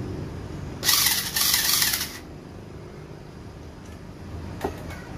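Small 3.6 V cordless screwdriver run briefly, a whirring burst of about a second and a half that dips once partway through. A single light knock follows a few seconds later.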